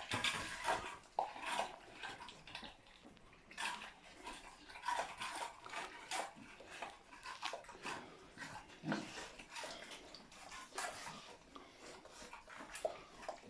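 Several small pets eating from food bowls: irregular chewing, smacking and licking with light clicks of food against the bowls.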